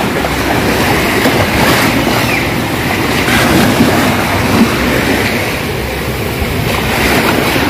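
Steady rush of wind on the microphone mixed with small waves washing at the sea's edge.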